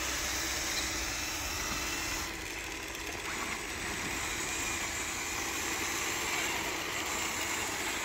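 Steady low mechanical hum with a faint constant tone, like a motor running.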